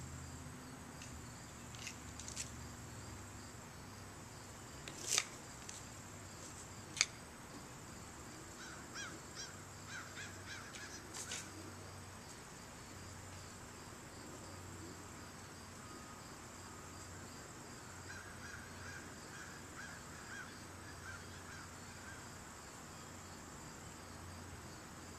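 Insects drone steadily at a high pitch. Two sharp snaps come about five and seven seconds in, and faint short chirps run twice, around the middle and later on.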